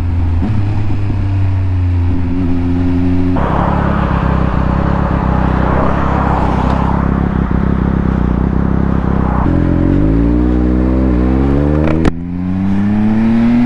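Triumph Speed Triple RS three-cylinder engine with a Scorpion titanium exhaust running at a steady low pitch while a car goes past. Then the engine pulls away with the revs rising, a sharp break about twelve seconds in as it shifts up, and the revs climbing again.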